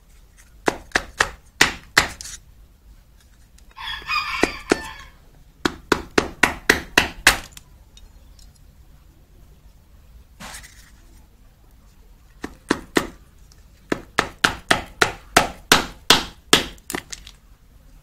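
A knife blade tapped hard against the black plastic casing of a small 400 V film capacitor to crack it open, in quick runs of sharp knocks: about five, then seven or eight, then a pause, then a longer run of about ten.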